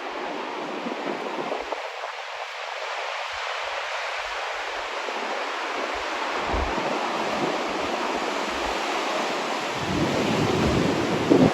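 Heavy ocean surf breaking in a steady rushing roar, with wind buffeting the microphone in low rumbles; it swells louder near the end.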